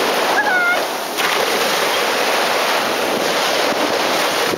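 Sea surf washing on the beach, with wind buffeting the microphone in a steady rushing noise. A brief high gliding call sounds about half a second in.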